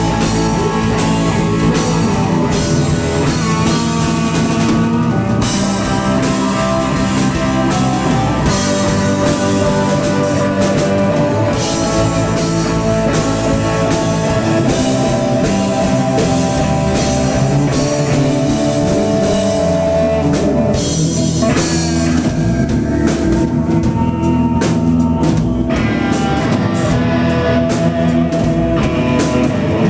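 Live rock band playing at full volume: electric guitar, electric bass, drum kit and keyboards, with a steady drum beat.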